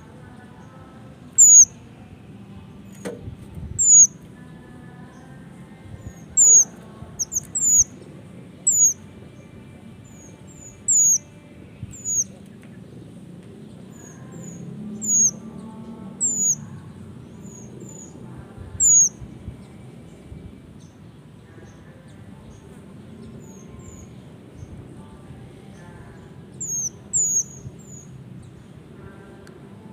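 Male minivet giving short, very high, thin calls, singly or in quick pairs and triplets, every second or two with some longer gaps, over a low steady background hum.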